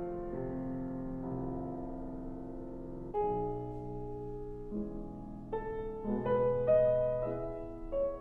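Solo piano playing slow classical music, sustained notes and chords changing every second or so, with a louder chord about three seconds in.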